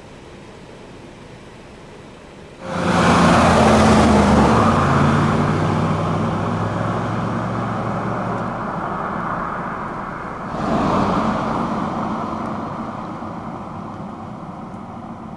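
Large SUV's engine suddenly loud as it pulls away and accelerates past, its pitch stepping up, with tyre and road noise. A second surge comes about ten seconds in, then the sound fades as the vehicle moves off.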